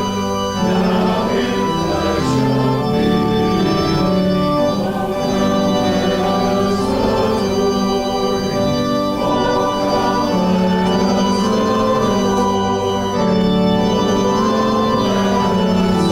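Organ playing slow, held chords that change about every second.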